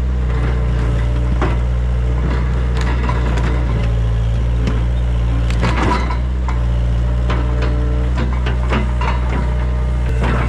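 Hitachi EX75UR mini excavator's diesel engine running at a steady pitch while the bucket digs at a tree stump, with scattered cracks and crunches of roots and soil breaking.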